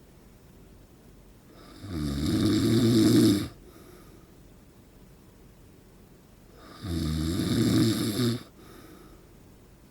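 A man in his forties snoring in his sleep: two loud snores about five seconds apart. Each lasts under two seconds, has a low buzzing pitch and is followed by a faint breath.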